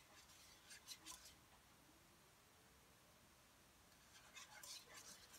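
Faint scraping of a utensil stirring a white sauce against a nonstick pan, a few strokes about a second in and a longer run near the end.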